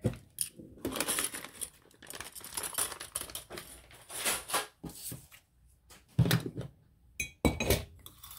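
Clips being taken off a freshly sewn paper journal: a run of small clicks and knocks with paper rustling, two louder knocks as they are set down, and a short metallic ring near the end.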